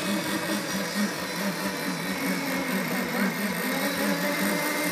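Small 7.5 cc nitro engines of radio-controlled racing boats running: a steady, pulsing engine buzz, with a second, higher engine note coming in partway through.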